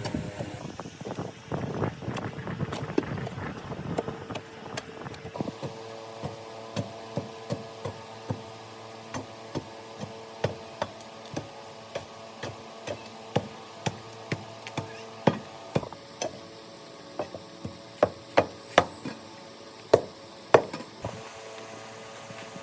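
Tools striking wood: a dense clatter of knocks for the first five seconds or so, then single sharp strikes about one or two a second, the loudest near the end, over a steady hum.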